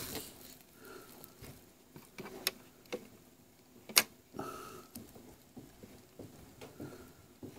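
Quiet, scattered clicks and taps from handling the turntable's tonearm lift mechanism, with one sharper click about four seconds in.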